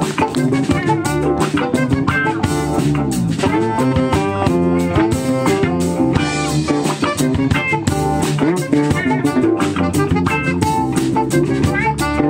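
A live band playing: drum kit, electric guitars, a Roland Juno-DS keyboard and an alto saxophone.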